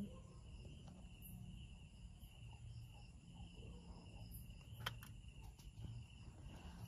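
Near silence: quiet room tone with a faint, steady high-pitched tone, and a single sharp click about five seconds in.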